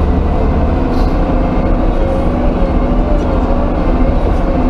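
Yuchai diesel engine of a front-end loader running steadily under way, with a steady whine that wavers a little in pitch over the low engine rumble. The engine is running normally after its fuel injection pump was serviced and refitted.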